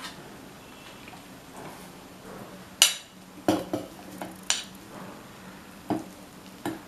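Metal spoon scooping sticky tamarind, clinking and scraping against a stainless-steel mixer-grinder jar and a plate: several sharp clinks, the loudest about three seconds in, a quick run of them just after, and two more near the end.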